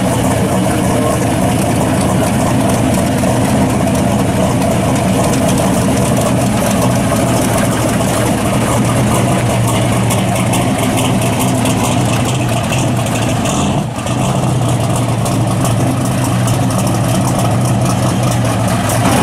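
1956 Chevrolet Bel Air drag car's engine idling loud and steady while the car creeps forward.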